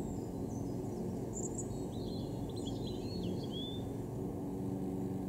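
Small birds chirping, with a quick run of short calls in the middle, over a steady low background rumble.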